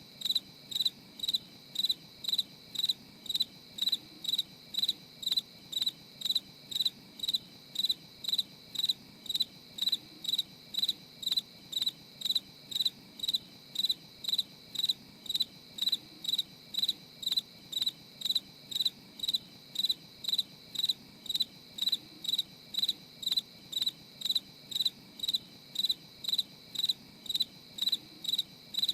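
A cricket chirping in an even, unbroken rhythm of about two high chirps a second.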